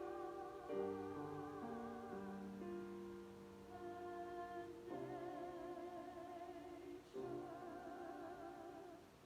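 Chamber choir singing sustained chords, the voices held with vibrato and the harmony shifting every second or two. The sound dies away shortly before the end.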